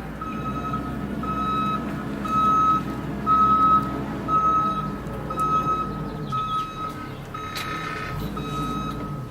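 Vehicle reversing alarm beeping steadily, one even tone repeating a little more than once a second, over a low engine rumble.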